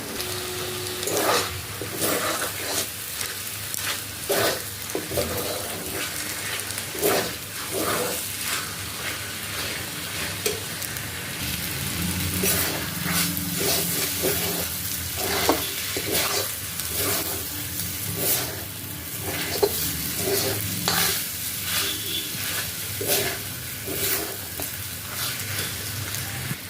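Ground raw turmeric paste sizzling as it fries in ghee and oil in a pan, with a stirring stroke knocking against the pan every second or two. The oil has begun to separate from the turmeric, the stage when the paste is nearly fried.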